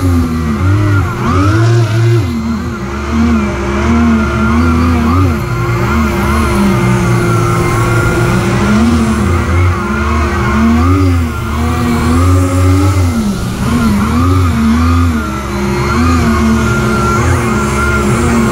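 RC hovercraft's electric motors and propellers running, heard from on board. The lift fan gives a steady hum, while the twin thrust propellers' pitch keeps rising and falling as their throttle changes, over rushing air.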